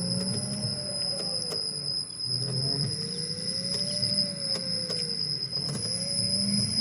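Ola S1X electric scooter's hub motor running at low speed: a steady high whine with a groaning tone that rises and falls in pitch every few seconds over a low rumble. The owner takes this vibration noise for a motor problem.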